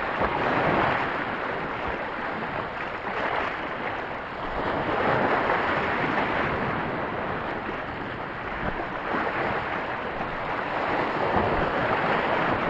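Sea waves washing and breaking over a shallow coral reef edge, the surf swelling and easing in surges a few seconds apart.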